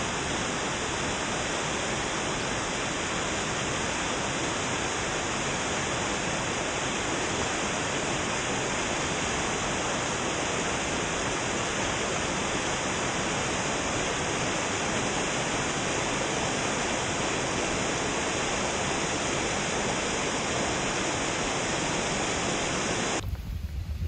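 Tall waterfall pouring down a steep rock face: a steady, unbroken rush of falling water that cuts off abruptly about a second before the end.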